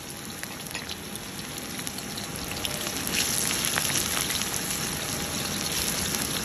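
Sliced onions frying in hot oil in a black iron karahi, a steady sizzle with crackle, stirred with a perforated metal skimmer. The sizzle grows louder about three seconds in.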